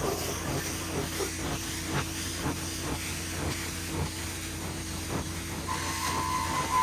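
Vacuum cleaner running steadily on carpet, with scattered clicks throughout. A high whine comes back in near the end.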